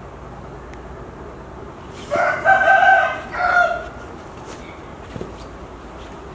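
A rooster crowing once, about two seconds in. The call lasts about a second and a half and has a short break before its last note.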